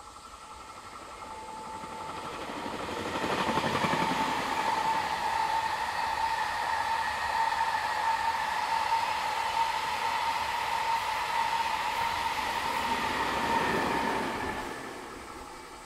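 A train passing close by: the noise builds over the first few seconds, holds for about ten seconds with a steady high whine running through it, then fades away near the end.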